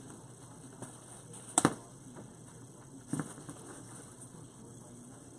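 Faint rustle and ticking of handled wreath-making materials, with two sharp clicks, the first and louder about a second and a half in, the second about three seconds in.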